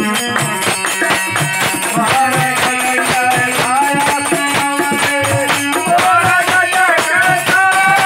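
Live Indian folk song: a harmonium plays held notes and a drone while a hand-played dholak keeps a quick, steady beat, with a voice singing the melody.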